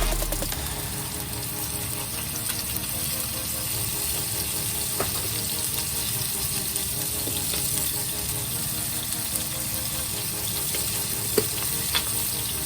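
Food sizzling in a frying pan, with a few light clicks of a utensil against the pan.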